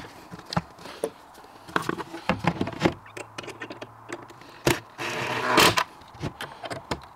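Cordless drill-driver driving the pre-fitted hinge screws of a cupboard door into the unit's wooden panel, in two short runs, the second and louder one about five seconds in. Scattered clicks and knocks of the door and panel being handled.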